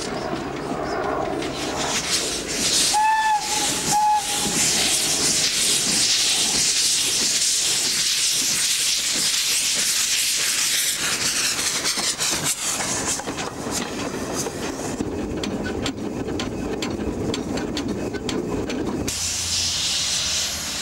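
Steam locomotive giving two short whistle blasts about a second apart, then a loud, steady hiss of escaping steam.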